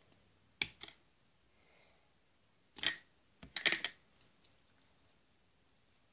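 Metallic-effect slime being handled and pulled: short sticky squelches and pops, two quick ones about half a second in, then a denser cluster around three to four seconds in.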